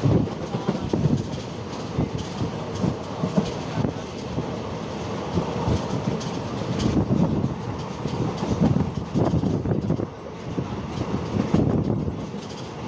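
Passenger train running along the track, its wheels clattering and knocking over the rails, heard from on board.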